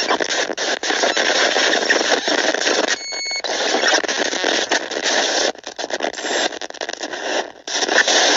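Loud, harsh static-like noise with no melody. A brief high steady tone sounds about three seconds in, the noise drops out for an instant several times, and it cuts off abruptly at the end.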